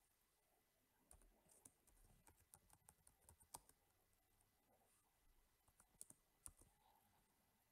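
Faint computer keyboard typing: a quick run of key clicks for a couple of seconds, then a few more keystrokes a little later.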